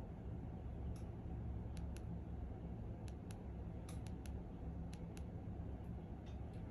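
Side volume button of a Blackview BV9900E rugged phone clicking, pressed repeatedly to step down the Android Recovery menu: about ten light, sharp clicks, several in quick pairs, over a steady low hum.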